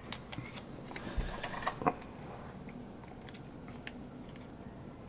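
Light clicks and taps of small plastic pieces being handled on a desk, scattered and irregular, a little busier in the first two seconds.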